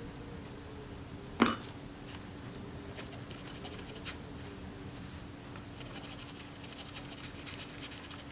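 A small tool or part clinks once against a hard surface about a second and a half in, followed by a few faint taps and scrapes, over a steady low hum.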